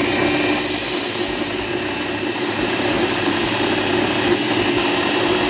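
Bajaj Master Chef 3.0 food processor's motor running steadily at speed, dry-mixing wheat flour with salt, ajwain and oil before any water goes in.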